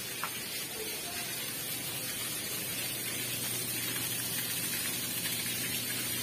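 Water from a submersible pump's discharge pipe gushing and spraying onto concrete, as a steady rushing hiss over a faint low hum while the pump is test-run.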